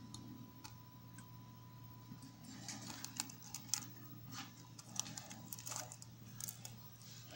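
Faint, scattered small clicks and light crackles, coming in loose clusters through the middle, over a low steady hum.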